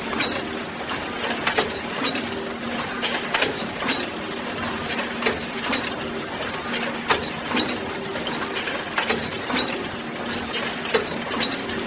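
Box factory machinery running: a steady mechanical hiss with sharp clacks about once a second, some in quick pairs, and a low hum that comes and goes.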